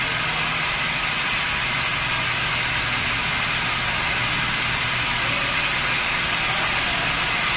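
Row of pneumatic roller mills in a maize flour mill running on a commissioning trial run: a steady machine drone and hiss with a low hum underneath.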